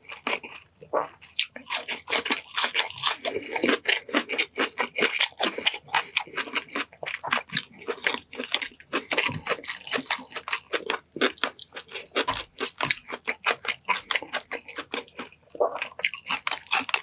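A person eating close to the microphone: rapid, irregular crunching and chewing, several sharp mouth sounds a second.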